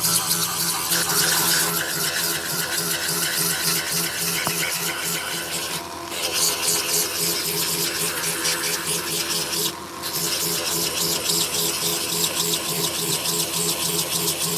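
A power tool buffing or rasping tire rubber, running steadily with a fast scraping texture, briefly easing off about six seconds in and again about ten seconds in.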